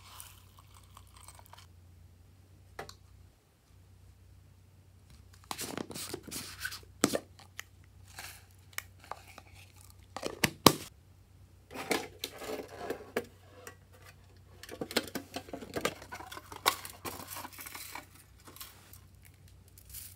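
Hands dropping shredded paper and sequins onto slime in a glass tray: rustling, crinkling and pattering in several bursts from about five seconds in, with a couple of sharp clicks.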